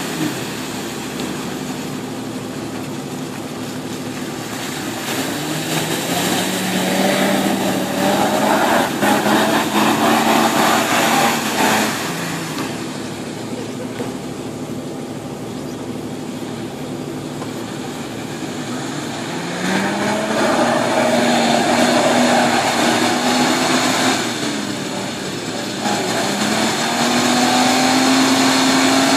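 Toyota Land Cruiser 70-series engine revving as the 4x4 ploughs through a muddy pond, with its tyres churning mud and water. The revs climb and fall away several times, dropping sharply twice.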